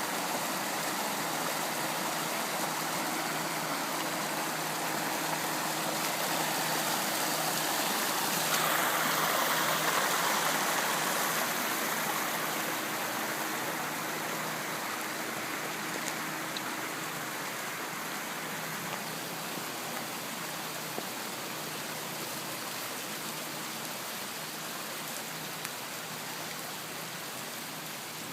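Fast-flowing floodwater rushing steadily, growing louder about eight seconds in and easing off over the following seconds, with a faint low hum underneath.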